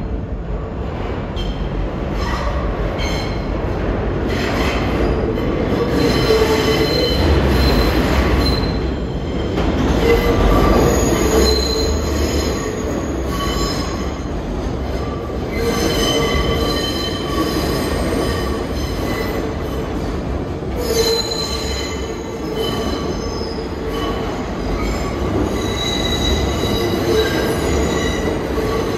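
New York City subway train moving through the station, its steel wheels squealing against the rails in several high tones that come and go over a low rumble.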